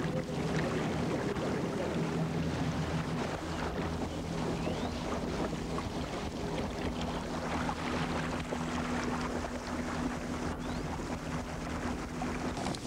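Outboard motor pushing a long wooden dugout canoe, running at a steady pitch, with water rushing along the hull and wind on the microphone.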